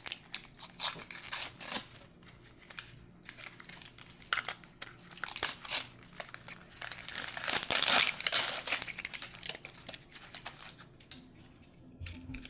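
Toy packaging crinkling and tearing as it is handled and opened: irregular crackles and rustles, with a longer, louder stretch of crinkling about two-thirds of the way through.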